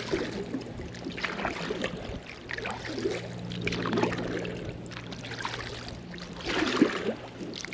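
Kayak paddle strokes dipping and splashing through weedy river water, a stroke every second or two, over a steady low hum.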